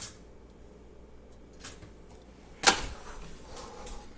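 Kitchen handling sounds: a light click at the start, a fainter one, then one sharp clack about two and a half seconds in, like a hard object being set down or knocked.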